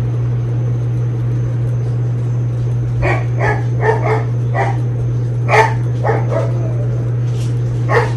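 A dog barking in short, separate barks, about nine of them starting about three seconds in, over a steady low hum.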